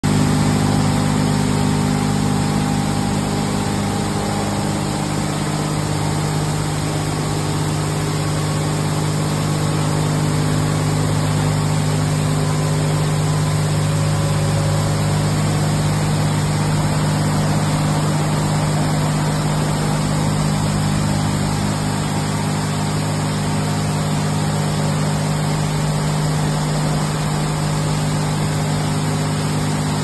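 Touchless automatic car wash running: a steady machine hum under the hiss of high-pressure water spraying over a car.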